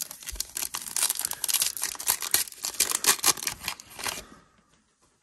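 Foil wrapper of a Donruss football card pack being torn open and crinkled by hand, a dense crackle of small rips that stops about four seconds in.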